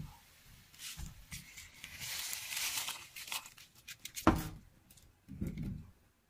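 Kitchen handling noise. Crinkling and rustling runs for about a second, then a sharp knock comes about four seconds in, the loudest sound, followed by a few soft thumps.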